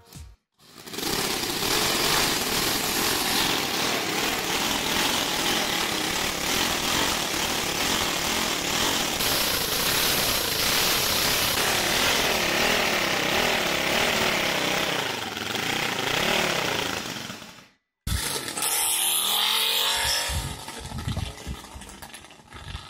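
The Bistella 500's homemade ten-cylinder two-stroke double-row radial engine running, revved up and down several times toward the end, then cut off abruptly. After a short gap, the motorcycle is heard running on a street.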